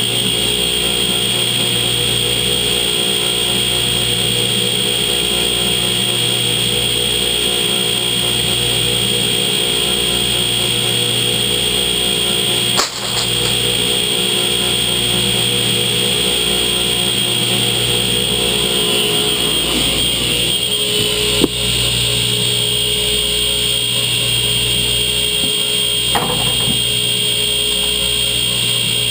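Workshop machinery running steadily: a constant drone with a steady high whine over a low hum, with a brief break about halfway and a couple of faint knocks later on.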